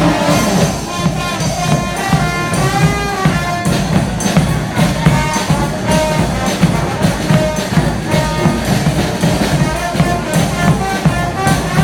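A street band playing: horns carry a melody over steady, busy drumming.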